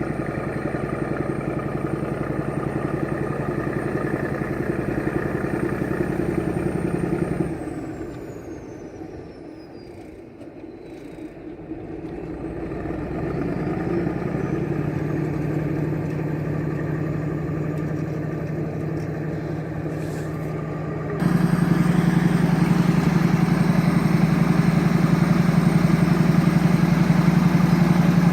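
Heavy diesel crawler bulldozer engines running steadily. The engine falls away about eight seconds in and builds back a few seconds later. About 21 seconds in it cuts abruptly to a louder, closer engine.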